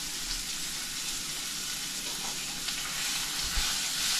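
Sausage sizzling in a skillet on a gas stove: a steady frying hiss.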